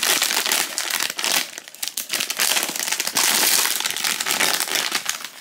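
Metallised foil blind-box pouch being crinkled and torn open by hand: dense, continuous crackling with a slight lull about two seconds in.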